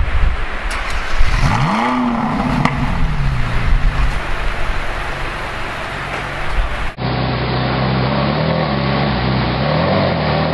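Ferrari V8 engine revving, its note climbing and then falling away as the car accelerates. After a cut, a Ferrari V8 idles steadily, with a brief light blip of the throttle near the end.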